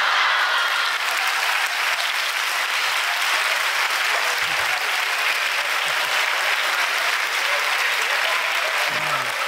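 Theatre audience applauding steadily after the punchline of a stand-up comedy routine.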